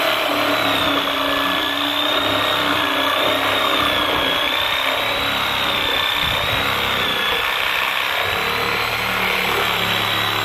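Bee vacuum running steadily, sucking honeybees out of a wall hive, its motor giving a high whine that wavers slightly in pitch.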